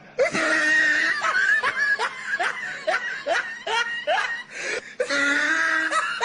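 A person laughing in a quick run of short bursts that rise in pitch, about two to three a second.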